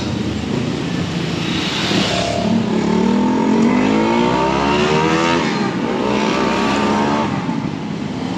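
A motor vehicle's engine accelerating along the street, its pitch rising for about three seconds, dropping at a gear change about five and a half seconds in, then rising again, over steady traffic noise.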